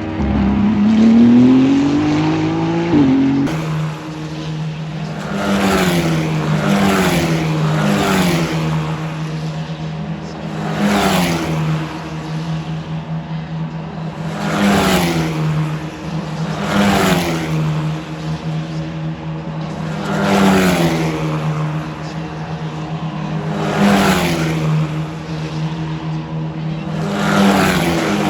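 Racing cars passing at speed on a circuit one after another, about eight passes spaced a few seconds apart, each engine note rising and falling as it goes by, over a steady low hum. Near the start one car's engine climbs in pitch as it accelerates.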